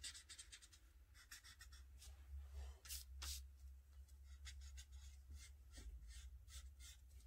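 Faint scratching of a black felt-tip marker on paper in many quick short strokes, with a louder rub or two about three seconds in as the sheet of paper is shifted. A low steady hum lies underneath.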